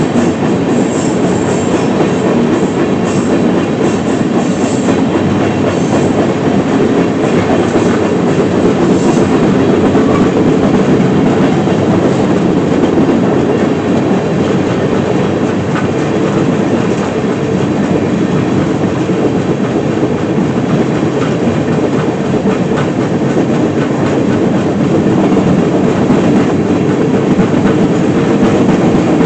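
Freight train cars rolling steadily along the track, the wheels running on the rails with no change in speed.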